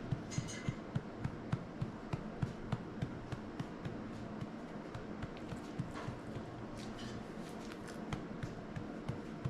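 Hand patting a young pet's back in a steady rhythm, about three pats a second, to bring up a burp.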